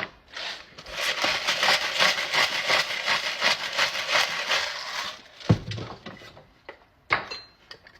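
Loud, close crunching of a crisp mouthful being bitten and chewed for about five seconds, then a knock and a second knock about a second and a half later.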